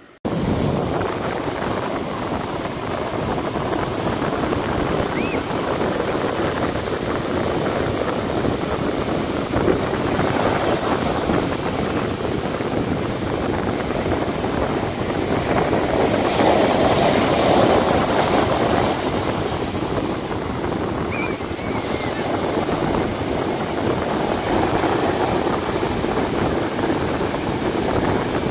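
Surf breaking and washing up a flat sandy beach, a steady rushing of waves that swells louder about halfway through.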